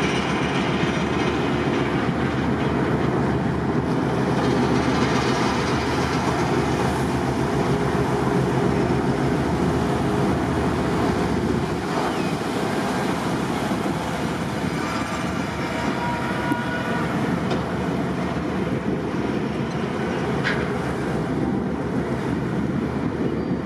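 Steady low rumble of a harbour tug's diesel engines running close by, with an even rushing noise over it.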